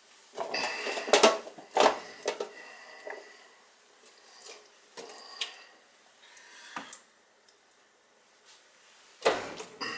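Roasting pans and utensils knocking and clanging as food is arranged in them, with short ringing after the sharper hits. The knocks are loudest in the first two seconds and again near the end, with scattered lighter knocks between.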